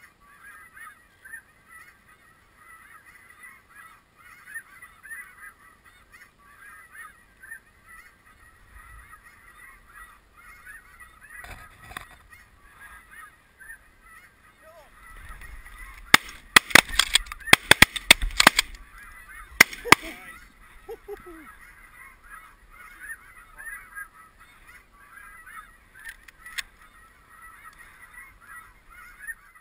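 Snow geese calling continuously in a dense chorus of high honks. A little past halfway comes a rapid volley of about eight loud shotgun shots over some four seconds, with a single shot earlier and another near the end.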